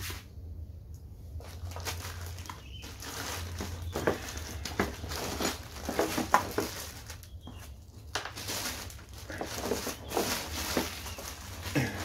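Clear plastic bag crinkling and rustling in irregular crackles as a rotary hammer drill is handled and unwrapped from it.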